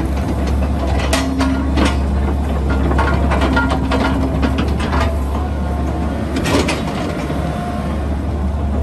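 Komatsu PC138US LC-8 excavator's diesel engine running steadily, with several sharp metallic clanks from the machine working and short whining tones in between.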